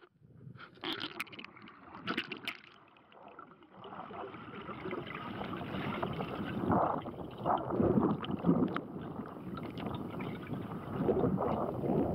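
Water sloshing and gurgling heard underwater, muffled. A few sharp clicks come in the first two seconds, then a dense, swelling rush of water grows louder from about four seconds in.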